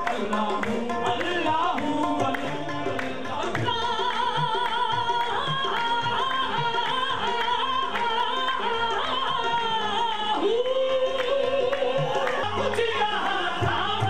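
Qawwali-style group performing live: a male lead voice sings long, ornamented lines with a wavering vibrato over harmonium and a steady rhythm of hand-clapping and percussion. About ten and a half seconds in, the voice slides up into a long held note.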